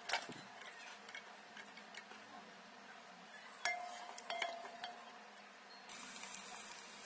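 Wooden spoon knocking and scraping against a metal pot while stirring chopped onions in oil, with a sharp clink about halfway through that rings briefly. Near the end a soft steady hiss of the onions frying starts.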